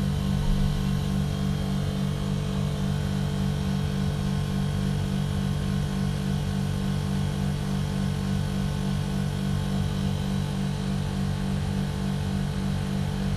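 Outdoor unit of a TCL ductless split air conditioner during its defrost cycle: the compressor is running with a steady low hum made of several pitched tones while the outdoor fan is stopped.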